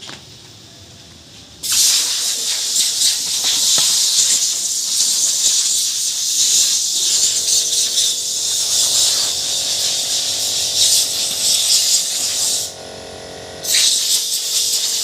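Power wood router running and cutting, a loud, steady hissing noise with a faint tone underneath. It starts about two seconds in, stops for about a second near the end, then starts again.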